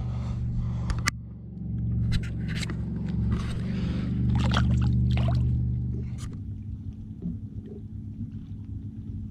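Splashing and sloshing water with a few sharp knocks as a small largemouth bass is lowered over the side of a small boat and released, over a steady low hum. The knocks and splashing fade out about six seconds in, leaving the hum.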